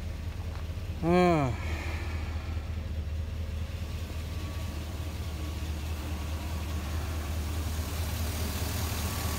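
Freshly swapped engine in a Chevrolet Silverado pickup idling steadily at operating temperature. About a second in, a short, loud sound falling in pitch cuts across it.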